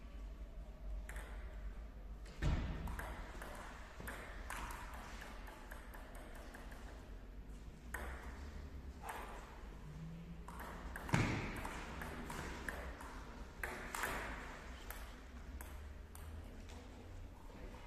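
Table tennis rallies: the celluloid ball clicking off the paddles and the table again and again, with a hall echo. Two louder thuds stand out, one a few seconds in and a stronger one about two-thirds through.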